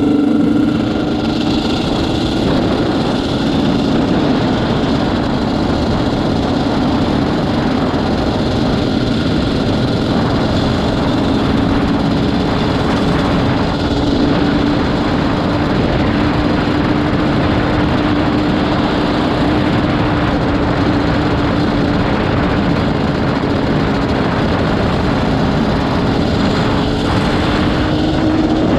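Yamaha Banshee 350 quad's twin-cylinder two-stroke engine running under way at a steady, moderate pace, its pitch holding nearly constant and rising a little near the end.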